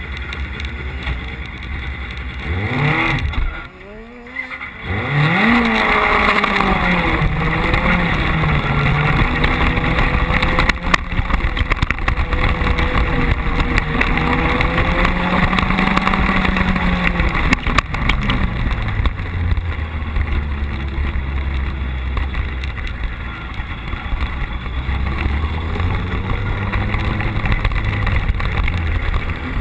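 Carcross buggy's motorcycle-derived engine heard onboard, revving up as it pulls away, with a short drop in revs about four seconds in. It then runs hard at high revs under acceleration, its pitch stepping down at gear changes around seventeen or eighteen seconds in.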